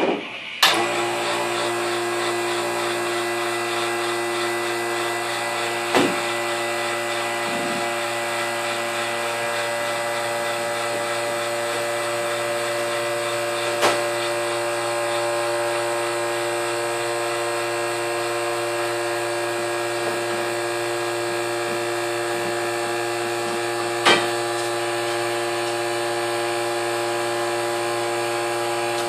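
The electric vacuum motor of a homemade vacuum former switches on with a click and runs with a steady hum while heated plastic is pulled down over the mould. Three sharp knocks sound over it.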